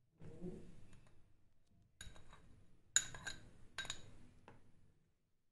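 Steel spoon clinking against a glass bowl while chopped ginger and garlic are spooned into the mix: a few soft handling sounds, then about six sharp, ringing clinks over a couple of seconds.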